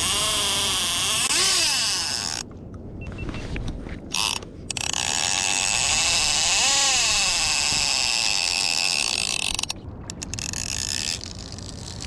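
Fishing reel ratcheting in long buzzing runs as line spools through it, the pitch rising and falling with line speed; one run ends about 2.5 s in and a longer one runs from about 4.5 s to nearly 10 s.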